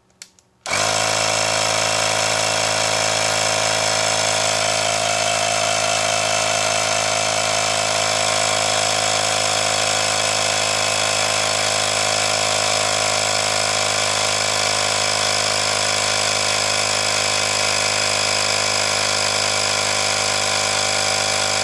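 Cordless handheld tire inflator's electric air compressor starting about half a second in and then running steadily, pumping air into a low ATV tire.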